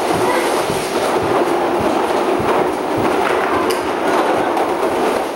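Plastic wheels of a large toy dump truck rolling and rattling over a hardwood floor as it is pushed along, a steady rumble with small irregular knocks.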